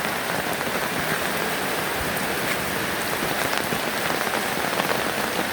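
Steady rain falling, an even hiss with individual drop hits scattered through it.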